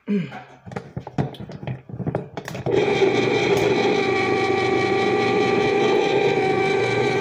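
Electric can opener's motor switching on about three seconds in and then running with a steady whirring hum, after a few clicks and knocks of handling the opener.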